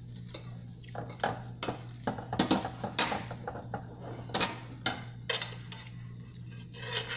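Metal spatula tapping and scraping in a frying pan while a pancake is checked: an irregular run of clinks and knocks, the loudest about two and a half to three seconds in, over a steady low hum.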